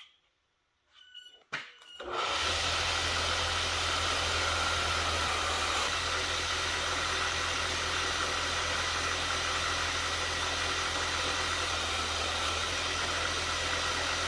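A few short squeaks, then about two seconds in an electric motor switches on and runs steadily with a loud, even whoosh over a low hum.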